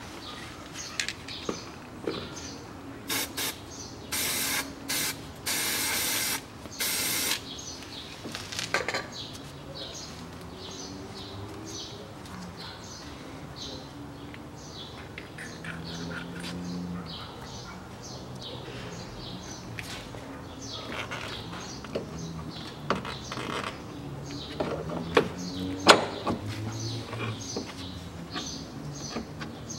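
Several short hisses from an aerosol spray can in the first few seconds. Then light metal clinks and knocks as the hub and steering knuckle are worked onto the CV axle splines and ball joint, with birds chirping in the background.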